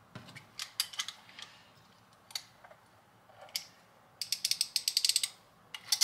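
Ratcheting hand crimp tool crimping a DTM connector pin onto thin 18-gauge wire. A few scattered clicks are followed, about four seconds in, by a quick even run of ratchet clicks lasting about a second as the handles close.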